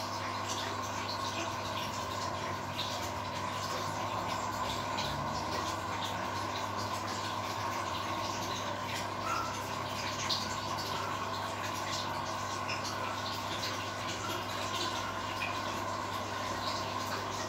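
Koi tank's aquarium pump and filter running: a steady low hum with bubbling, trickling water and small crackles over it.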